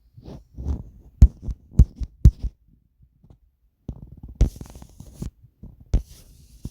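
Handling noise close to the microphone: soft thumps, three sharp clicks in the second and third seconds, then brief rustles near the end.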